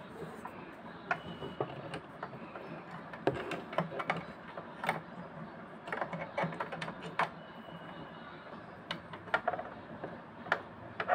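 Irregular small metallic clicks and taps as the hook-race parts of an Usha Stitch Magic sewing machine are fitted back into place around the bobbin area by hand.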